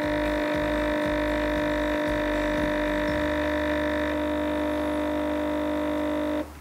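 Nespresso capsule machine's vibratory pump buzzing steadily while brewing a lungo, its tone shifting slightly about three seconds in, then cutting off abruptly near the end as the dose finishes.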